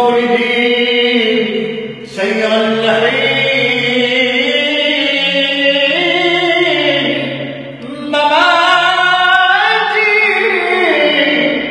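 A man singing a Shia religious poem (qasida) unaccompanied, in long melismatic phrases with held, wavering notes. There are short breaths about two and eight seconds in.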